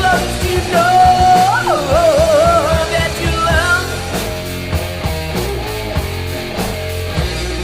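Rock song: a sung vocal line with wavering pitch for about the first four seconds, then the band plays on with guitar and drums.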